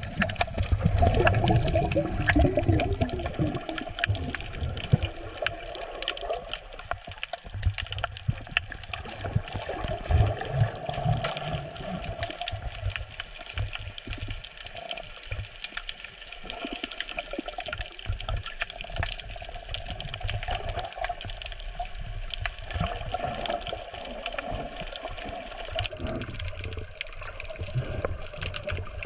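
Water heard underwater: a steady low churning rush with frequent faint crackling clicks.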